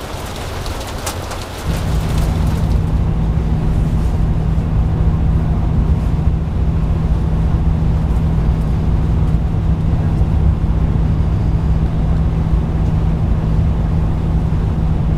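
Heavy rain on a car for the first second or two. Then a loud, steady low hum with a rumble beneath it sets in: the drone of a vehicle running on the road.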